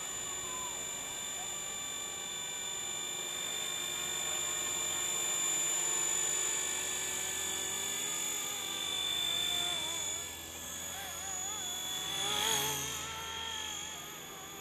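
Micro RC helicopter, a Microheli S300C with a three-blade main rotor and a 2627 brushless motor of 4200 kV, flying: a steady high-pitched whine of motor and rotors, swelling loudest about twelve seconds in.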